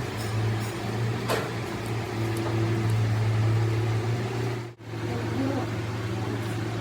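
A machine running with a steady low hum over a wash of noise; the sound drops out for an instant about three-quarters of the way through, then carries on unchanged.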